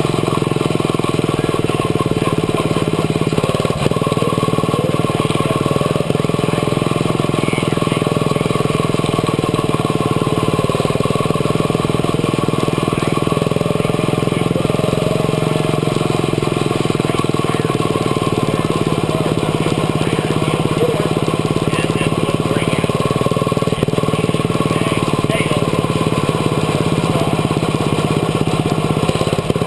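Quarter midget race car's small engine running hard and steadily at a near-constant pitch, heard from on board the car while it laps a dirt oval.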